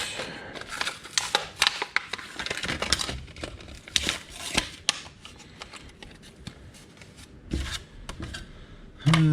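Plastic packaging being handled and opened by hand: irregular crinkling, tearing and small clicks.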